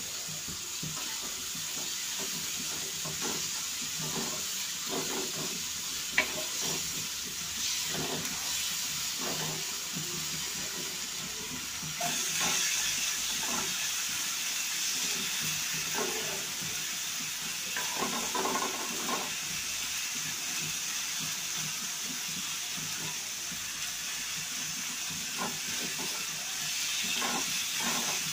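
Sliced onions and green chillies sizzling in hot oil in a frying pan, fried down for beresta (crisp fried onion), with a spatula scraping and stirring through them at intervals. A sharp click comes about six seconds in, and the sizzle grows louder about twelve seconds in.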